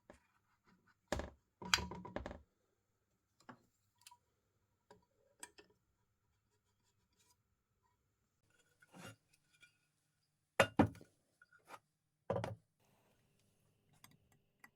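Metal parts and tools being handled on a workbench: a scatter of clinks and knocks with pauses between them. The loudest come about a second in and again about eleven seconds in.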